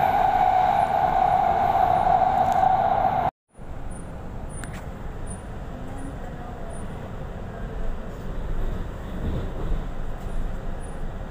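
A Doha Metro train running, heard from inside the carriage: a steady high whine over the running noise for about three seconds. The sound then cuts off abruptly for a moment and returns as a quieter, even rumble of the moving carriage.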